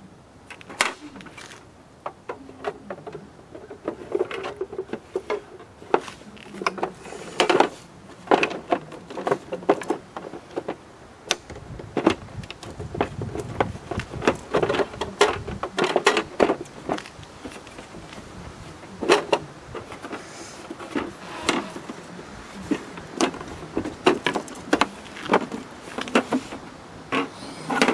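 Plastic housing shells of a Mosquito Magnet Patriot Plus being handled and fitted back together: irregular clicks, knocks and light scrapes of hard plastic.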